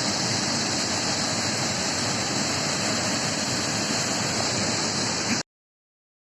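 Waterfall rushing: a steady, unbroken hiss of falling water that cuts off suddenly near the end.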